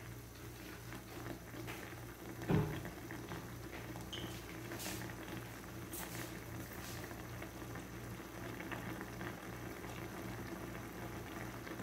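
Squid adobo simmering in soy sauce and the squid's own released liquid in a nonstick wok: a steady bubbling with small scattered pops over a low steady hum. There is one dull thump about two and a half seconds in.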